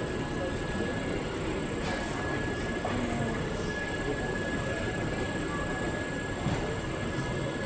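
Steady background noise of a busy exhibition hall, an even rumble and hiss with a faint steady high tone running through it.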